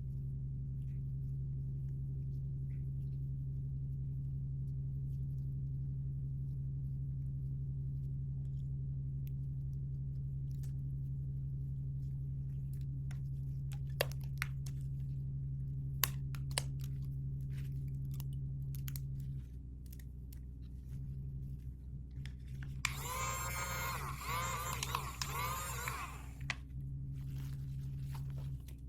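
Sharp little clicks and crunches of plastic toy packaging being handled, over a steady low electrical hum. Near the end comes a wavering, squeaky sound lasting about three seconds, the loudest thing here.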